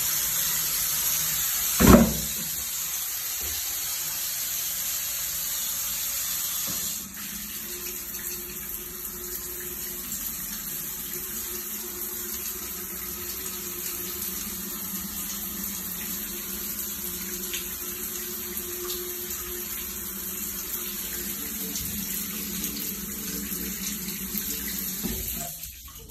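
Water spraying from a handheld shower head onto tile, a steady rushing hiss. There is a sharp thump about two seconds in, and the spray turns quieter about seven seconds in.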